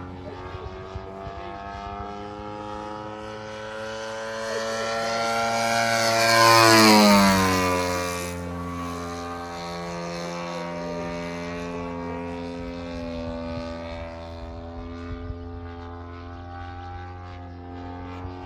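Scale model P-47 Thunderbolt's ZDZ 90cc two-stroke petrol engine running in flight, driving a 28x12 propeller. It grows louder as the plane makes a close pass about seven seconds in, the pitch drops as it goes by, and then it drones steadily further off.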